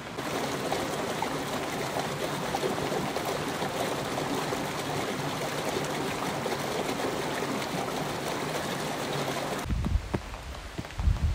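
Mountain stream running over boulders, a steady rush of water. About ten seconds in it cuts off abruptly, replaced by a few low thumps of footsteps on the trail.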